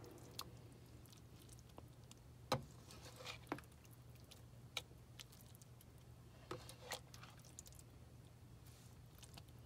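Plastic slotted spatula scooping stir-fried vegetables out of a nonstick pan into a bowl: scattered soft taps and clicks of the spatula on the pan and of wet food landing, over a faint low hum.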